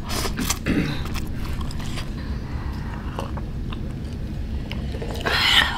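A person slurping and chewing instant cup noodles eaten with chopsticks: a slurp at the start, small wet chewing clicks, and a louder slurp near the end.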